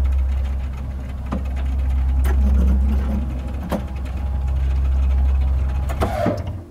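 Machine-lift sound effect: a steady low motor hum with several sharp clicks and clanks, stopping abruptly at the end as the lift cage comes to rest.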